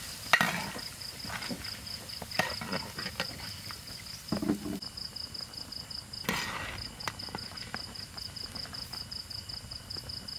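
Crickets chirring in a steady pulsing trill that breaks off briefly about halfway through, with a few sharp knocks from a metal ladle in the soup pot.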